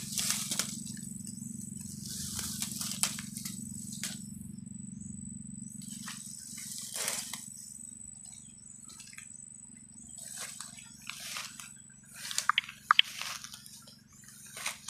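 Rustling and crunching of grass and dry leaves in irregular swishes, as someone moves or brushes through them, with a few sharp snaps about three-quarters of the way in. A low steady hum runs underneath.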